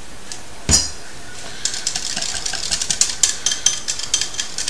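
A utensil briskly whisking melted butter and dry rub in a measuring cup: a fast, irregular run of clinks that starts about two seconds in, after a single thump about a second in.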